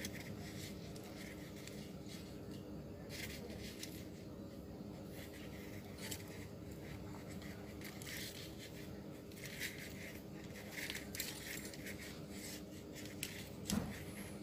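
Faint rustling and scraping of hand-stitching: thread drawn and wrapped around the end of a rope dog leash, with a few small metallic clicks from its snap hook, over a steady low hum.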